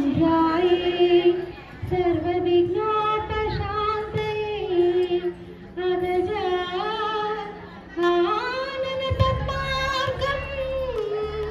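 A woman singing a devotional song to Lord Ganesha (Vinayaka) in long, held, ornamented phrases over a low steady hum, pausing briefly between phrases.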